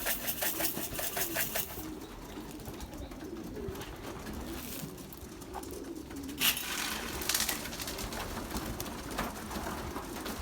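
Young racing pigeons cooing in the loft, a low wavering coo. In the first two seconds a rapid flutter of about six beats a second, pigeon wings flapping, and a short rustle about six and a half seconds in.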